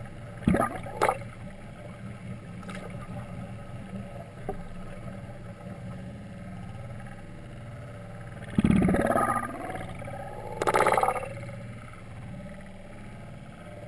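Underwater audio: a steady low hum broken by two short splashy bursts about half a second in, then two longer rushes of splashing and bubbling about nine and eleven seconds in.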